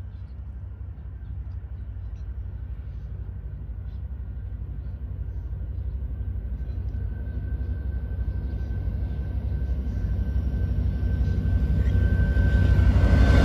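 Amtrak California passenger train approaching behind a diesel locomotive: a low engine rumble that grows steadily louder, with a thin high tone building over the second half.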